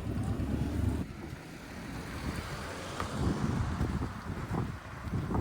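A vehicle's low rumble that falls away about a second in, with wind buffeting the microphone in irregular low thumps.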